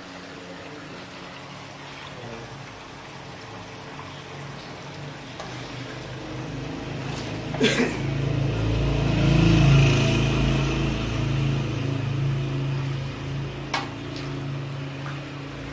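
A big pot of paye broth boiling hard over the fire, a steady bubbling with a low hum that swells louder about halfway through. Sharp clanks of metal utensils against the pots come about halfway in and again near the end.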